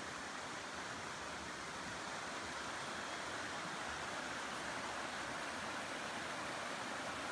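Steady rush of flowing water from a spring-fed stream that pours out from under the ground.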